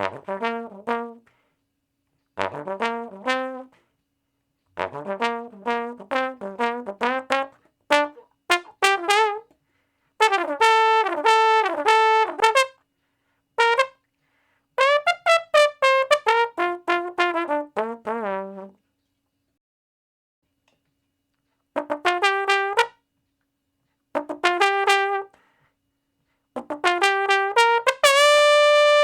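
A trumpet playing a string of short phrases of quick, separate notes that step up and down in pitch, with brief silent gaps between them, ending on a long held note.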